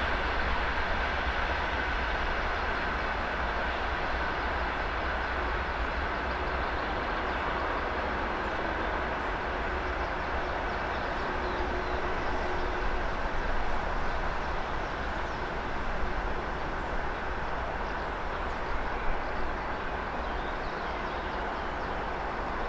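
Container train wagons rolling away along the track: steady wheel-on-rail noise with a high ringing tone that fades out about halfway through.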